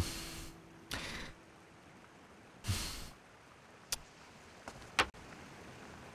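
Small stones being handled on a stone ledge: three short rushing noises, then a few sharp clicks of stone on stone about four to five seconds in.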